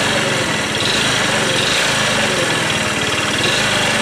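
Four-stroke scooter engine idling with a steady knock. The owner says it is not the valves, which he set to spec, and it stays with the variator parts and starter bendix removed.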